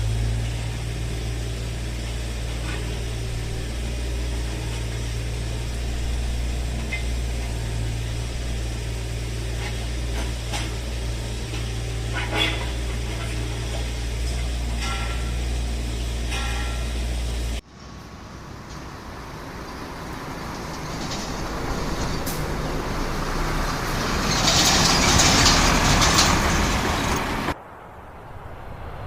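Vehicle sound effects played one after another. First comes a heavy engine's steady low rumble. After an abrupt cut about two-thirds of the way in, a rushing vehicle noise swells, peaks and falls away. It is cut off near the end by another clip.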